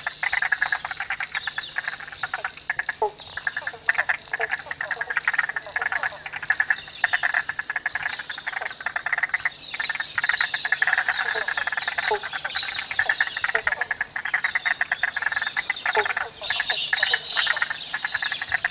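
A chorus of frogs calling together in a dense, rapid pulsed trill that never stops, with short lower notes every second or so. A brief, higher and brighter burst of sound comes near the end.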